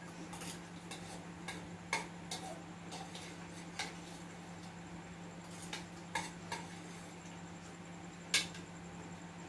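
A metal spoon clinking and scraping against a ceramic bowl while eating: a handful of scattered light clinks, the sharpest near the end, over a steady low hum.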